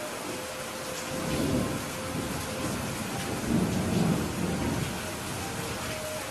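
Heavy rain falling steadily, with rolling thunder: a low rumble swells about a second in, and a louder one builds and fades between about three and a half and five seconds in.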